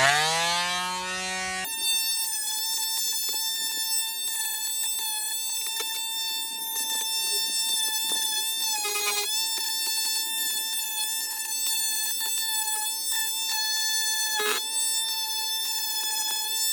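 A sweep rising in pitch, then one high steady tone with many overtones held for about fifteen seconds.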